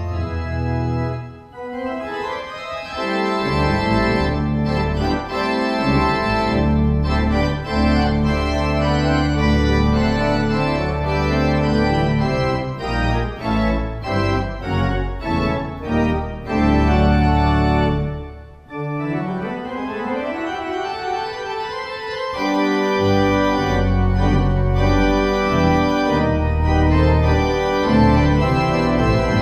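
Church organ playing full sustained chords over deep bass notes. It drops away briefly twice, and about two-thirds through a rising passage without the deep bass leads back into full chords.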